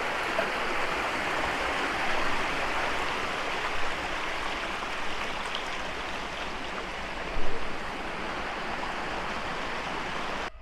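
Steady rushing of fast-flowing water from a waterfall and its stream, with a brief louder bump about seven seconds in; it cuts off suddenly at the end.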